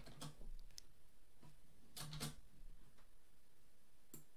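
Faint computer keyboard keystrokes and mouse clicks: a handful of scattered taps, two of them a little louder about two seconds in.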